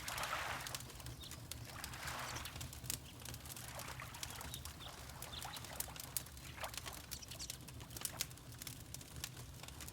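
Wood fire crackling with frequent sharp pops over a low steady rumble, mixed with water lapping in soft swells, the strongest at the start and another about two seconds in. Faint bird chirps come through now and then.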